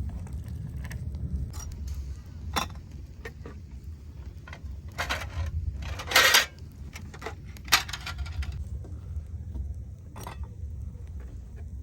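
Dishes and cooking utensils clinking and knocking now and then, with a louder clatter about six seconds in, over a steady low rumble.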